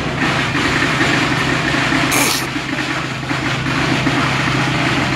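Ferry boat's engine idling steadily with a low hum, and a short hiss about two seconds in.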